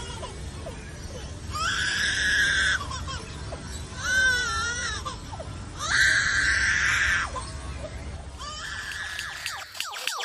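Lyrebird mimicking a crying baby: a series of wailing cries about a second long each, one with a wavering pitch and a fainter one near the end, over a steady low hum.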